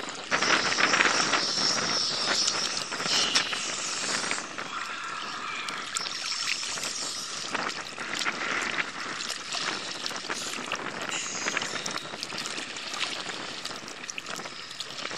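Small sea waves lapping and splashing against a camera held at the water surface, with many small splashes.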